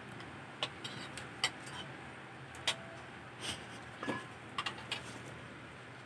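Hands picking over sweet potato tops: tender stems snapped off and leaves dropped into a stainless steel bowl, giving about ten scattered light clicks and snaps over a faint steady hiss.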